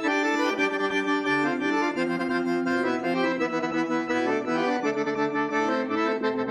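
Syrnai, the Kazakh accordion, playing a melody over held chords.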